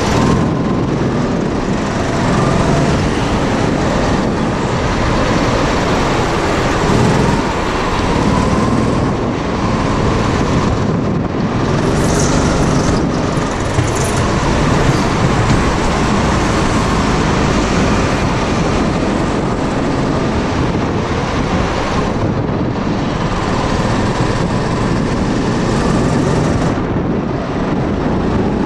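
Indoor go-kart running at speed, heard from a camera mounted on the kart: a loud, steady drone of the kart's motor and tyres, swelling a little as it goes through the corners.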